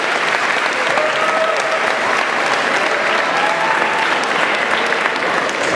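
Audience applauding steadily, a sustained round of hand-clapping.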